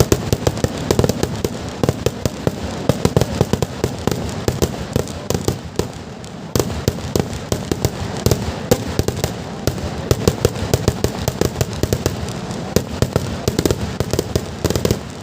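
Kerala temple-festival fireworks (vedikkettu): a dense, continuous barrage of firecracker bangs, many cracks a second, growing louder about six seconds in.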